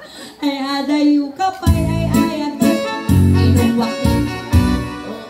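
A woman singing a held melodic line into a microphone. Electronic keyboard chords and bass notes come in about a second and a half in.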